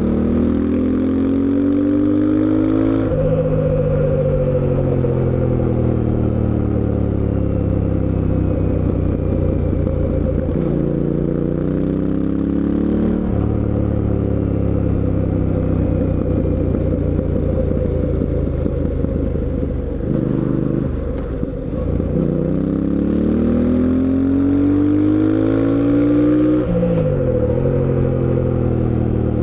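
Fantic Caballero 700 Scrambler's parallel-twin engine under way. It revs up through the gears with a sharp drop in pitch at each shift, about three seconds in and again near the end, and between pulls the pitch sinks slowly as the throttle is rolled off. Around two-thirds of the way through it dips briefly, then climbs hard again.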